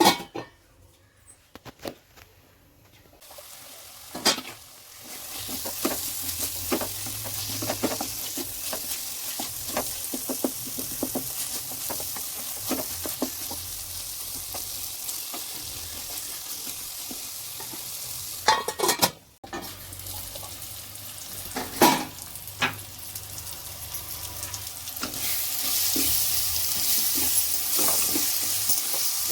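Chopped tomatoes cooking in oil with an onion and chilli-powder masala in a pan, a steady sizzle that starts after a few quiet seconds and grows louder near the end. A few sharp knocks against the pan cut through it.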